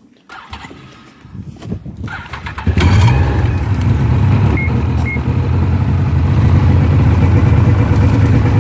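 Snowmobile engine being cranked over and catching about three seconds in, then running steadily.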